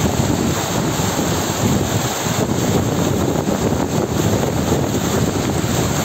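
Spring-fed stream cascading over rocks: a steady, loud rush of water.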